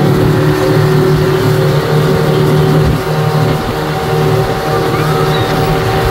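Speedboat engine running steadily at speed while towing, with the rush of its wake water over a steady engine drone.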